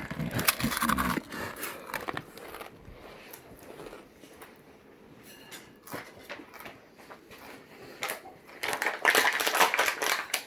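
Crisp, hard ice cream cones being bitten and chewed close to the microphone: a burst of crackly crunching at the start and a longer, louder one from about eight seconds in, quieter chewing in between.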